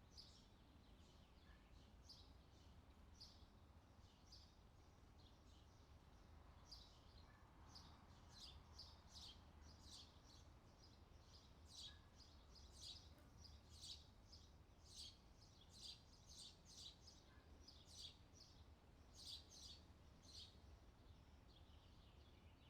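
Small birds chirping faintly in short, high chirps. The chirps come sparsely at first and thicken into a busy run of chirps from about a third of the way in. A faint low hum lies underneath.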